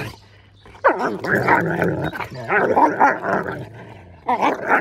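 Two young Kangal dogs play-fighting, growling at each other with open mouths in bouts, starting about a second in and again near the end.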